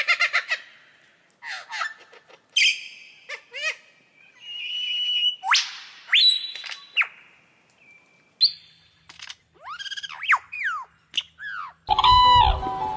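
Birds calling in a loose series of separate chirps, short whistles and calls that swoop up and down in pitch, with short pauses between them. Music comes in near the end.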